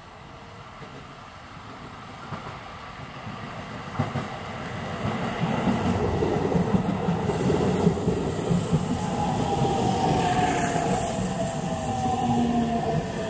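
JR Central 313 series electric train pulling into the platform, growing louder as its cars run past. In the last few seconds a falling whine sounds as it brakes to a stop.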